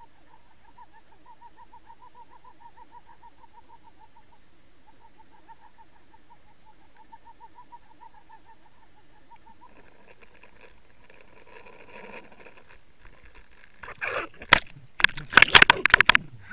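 Underwater sound picked up through the camera housing: a steady hum pulsing about ten times a second, typical of a boat's outboard motor and propeller heard through water. About ten seconds in it turns into a rougher rushing sound, and near the end loud knocks and splashes take over.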